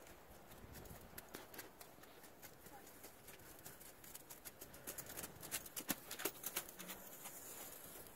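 Hooves of a young Shire x Andalusian colt striking frozen, snowy ground as it moves round on a lunge line: a run of irregular sharp hoofbeats, thickest and loudest about five to seven seconds in.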